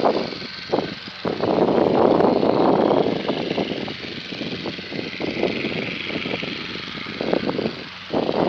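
A light aircraft's propeller engine running at an airfield, heard as a steady rushing drone, with irregular gusts of wind buffeting the microphone that are loudest in the first few seconds and again near the end.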